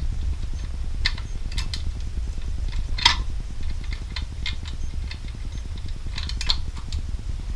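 Scattered light metallic clicks and clinks of a gun-rack baton lock's steel cam and spring being worked by hand from the back, the sharpest about three seconds in and a quick cluster near the end, over a steady low hum.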